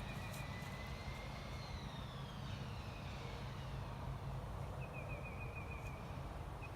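Steady low engine rumble, with a faint whine above it that slowly falls in pitch over the first few seconds.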